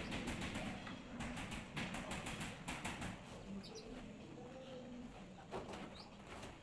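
Soft rustling and light scraping as a large granite wall tile is pressed and shifted by hand on a cement-coated wall. Two brief faint bird chirps, about three and a half and six seconds in.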